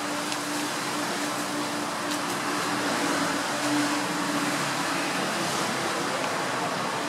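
A steady motor-like hum: one constant low tone over an even hiss, with a few faint ticks about two seconds in.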